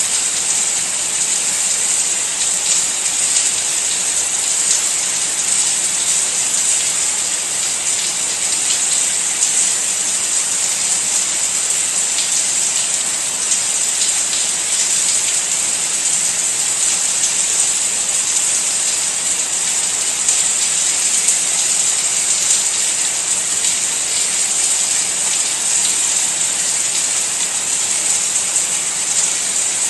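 Steady rain: an even, unbroken hiss flecked with the faint patter of single drops.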